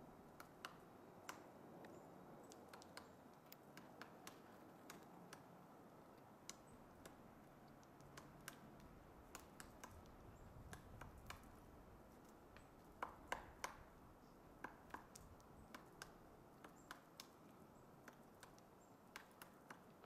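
Pileated woodpecker pecking and chiselling into a dead trunk: faint, irregular single knocks a little under one a second, not a drumming roll, with a quick cluster of louder strikes about thirteen seconds in.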